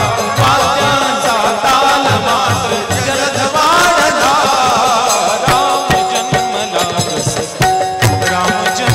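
Fast devotional bhajan music between sung lines: a melody winds up and down over quick hand-drum beats, then settles into a long held note about halfway through.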